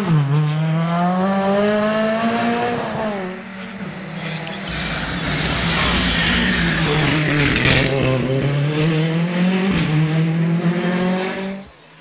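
Rally car engines at full throttle. First an engine note climbs hard and drops away as the car lifts or shifts. Then a rally car, a Ford Fiesta, charges up and passes close with a loud rushing noise of tyres and engine, its engine note falling and climbing again through the gears before the sound cuts off abruptly.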